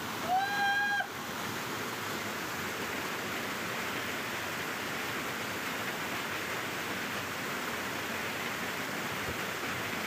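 Waterfall rushing steadily. Near the start a short high pitched tone, rising and then held for under a second, sounds over the water.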